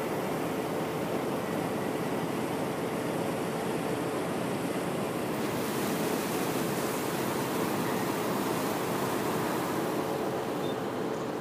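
Steady rushing noise of a tour boat under way on a river, wind and water with a faint steady engine hum beneath; the hiss grows brighter about five seconds in.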